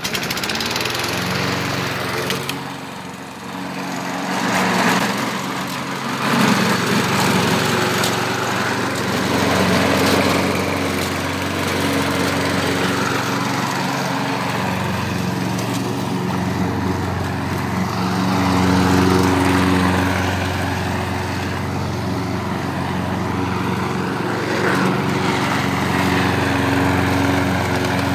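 2015 Lawn-Boy walk-behind rotary mower's small single-cylinder engine running at a steady cutting speed while it is pushed through the grass. Its pitch rises just at the start, and the loudness swells and dips a little as the mower moves about.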